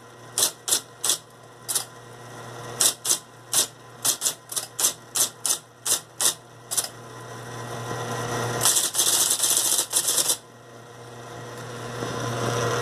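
IBM Selectric Model 71 electric typewriter typing, its font ball striking the paper. A few separate strokes come first, then a quicker run of about a dozen, then a dense clatter lasting nearly two seconds. A steady low hum from the running machine lies underneath.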